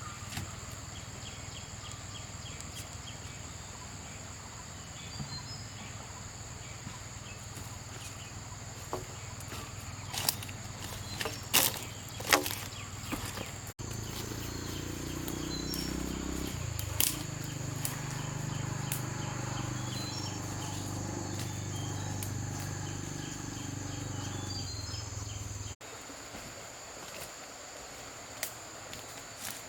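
Insects buzzing with a steady high note over outdoor ambience. A few sharp knocks come about a third of the way in, and a low droning hum sets in during the middle, stopping abruptly.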